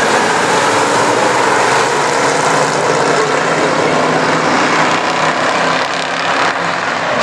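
A field of Street Stock race cars running together as a pack, their engines loud and continuous.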